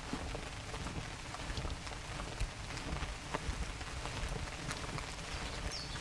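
Light rain in a forest: a steady hiss of falling rain with many single drops ticking close by at irregular moments.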